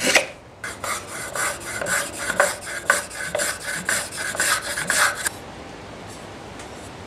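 Small hand plane shaving a wooden sheath blank in quick, short scraping strokes, about four a second. The strokes stop about five seconds in.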